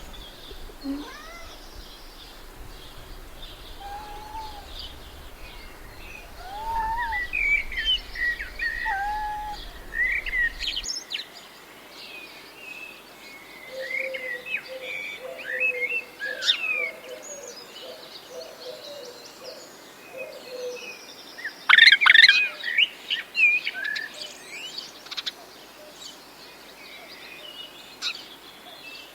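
Wild birds singing and calling: a mix of short chirps and whistled notes, with a run of lower rippling notes in the middle and a dense, loud flurry of calls about three quarters of the way through.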